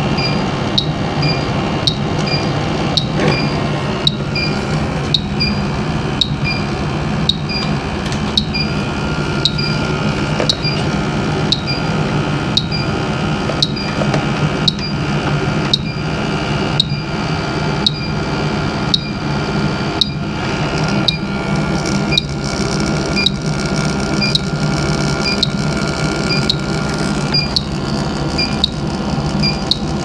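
Bacharach H-10 Pro electronic refrigerant leak detector ticking at an even pace, a little under two short beeping ticks a second, while searching for a leak. Under it runs the steady low hum of the operating HVAC equipment.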